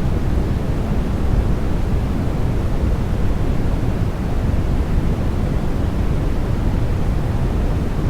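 Continuous generated sleep noise of the kind sold as white noise for babies: an even, unchanging rushing hiss, weighted toward the deep end.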